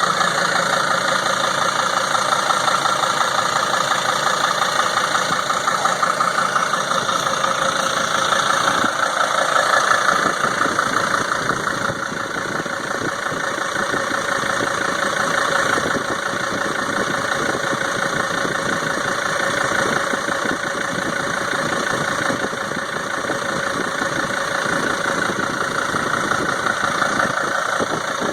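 2003 Sprinter van engine idling with a rapid, steady knocking and ticking, louder than normal; the owner does not know the cause.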